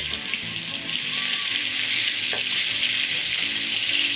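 Spice-marinated prawns frying in hot oil in a nonstick wok: a loud, steady sizzle, with a spatula stirring them.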